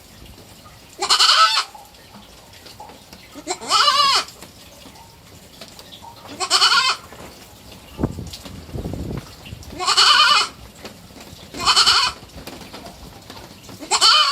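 Three-month-old kid goat bleating repeatedly: six short calls, each about half a second long, spaced a couple of seconds apart.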